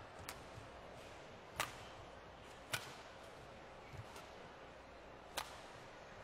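Badminton rally: a shuttlecock struck back and forth with rackets, a handful of sharp cracks spaced about one to two and a half seconds apart, with one soft thud of a footfall between them.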